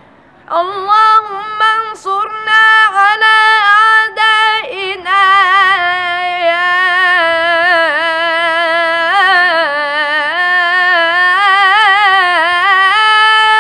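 A boy singing an unaccompanied Islamic inshad supplication in Arabic, in long melismatic phrases of held notes with wavering ornaments. The voice comes in about half a second in, after a short breath.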